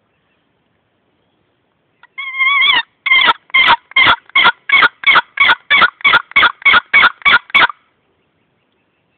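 Wooden paddle-lid turkey box call being stroked: one drawn-out squealing note, then a run of about fourteen short, sharp notes, roughly three a second, imitating wild turkey calls to draw in birds.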